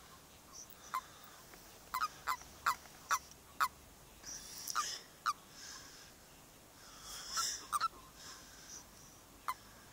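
Toads in a mating ball giving short, sharp croaking chirps: a quick run of about five between two and four seconds in, then a few more scattered through the rest. Such chirps are typical of the release calls that male toads give when clasped by a rival male.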